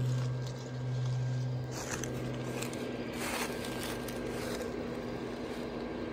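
Steady hum of an airblown inflatable's base blower fan running, with a few brief rustling noises over it.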